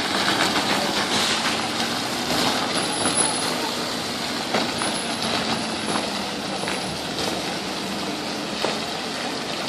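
Static hydraulic pile driver's engine and hydraulics running steadily, with a low hum, a few faint knocks and some brief high squeals.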